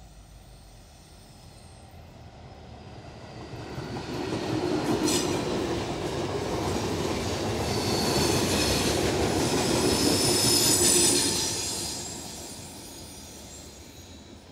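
Norfolk Southern freight train rolling past close by. Its wheels rumble on the rails, swelling from about three seconds in and loudest for about seven seconds. A high-pitched wheel squeal and a few rail-joint knocks come in the middle, then the sound fades away near the end.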